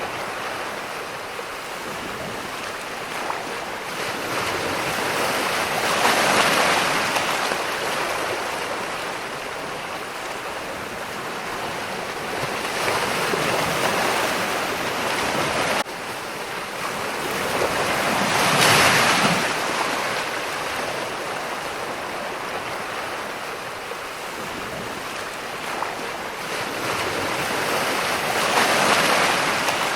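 Ocean waves rolling in and breaking on shore in a steady wash, swelling to four crests about six seconds apart. There is an abrupt drop in the wash about halfway through.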